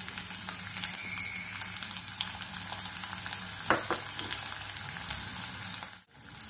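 Sliced red onions sizzling and crackling in hot oil in a stainless steel kadai, freshly added to the pan. A brief sharp sound comes just before four seconds in, and the sizzle cuts out for a moment near the end.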